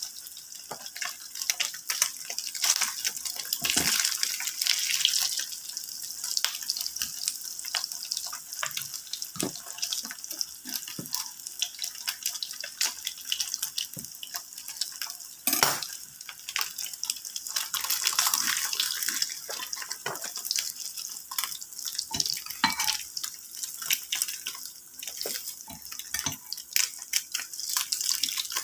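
Slices of Spam frying in hot oil in a pan: a steady crackling sizzle full of small pops, with one louder crack about halfway through.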